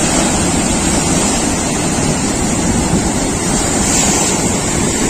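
Rough sea surf: waves breaking and foaming water washing over shoreline rocks, a steady loud rush, with wind buffeting the microphone.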